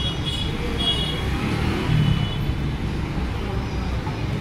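Steady road traffic noise, a low rumble with a few short high tones over it.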